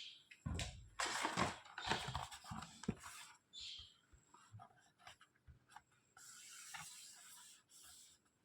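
Handling noises from unboxing a Bluetooth device: scraping and rustling with irregular knocks and clicks, loudest between about half a second and three seconds in, then lighter clicks and a steady rustle near the end.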